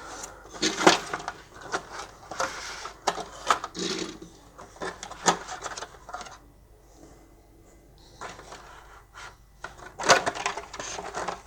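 Cardboard toy box and plastic packaging being handled as a diecast toy truck is slid out: irregular rustles, scrapes and light clicks, with a quieter lull past the middle and a busier flurry near the end.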